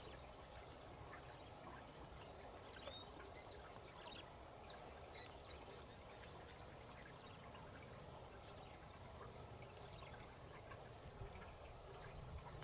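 Faint outdoor ambience: insects keep up a steady high-pitched trill, with a few short faint chirps in the first half and a low background rumble.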